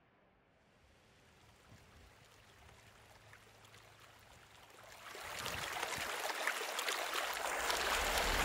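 Water of the Fountain of the Four Rivers splashing and running, a rushing noise that grows louder and swells sharply about five seconds in.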